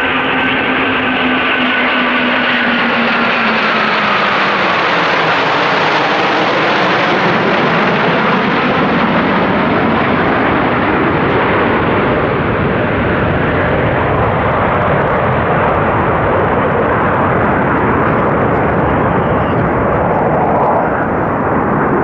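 Loud jet roar from a formation of Eurofighter Typhoon fighters with their twin EJ200 turbofans, passing overhead. A whine in the roar drops in pitch over the first few seconds as they go by, then a steady roar carries on.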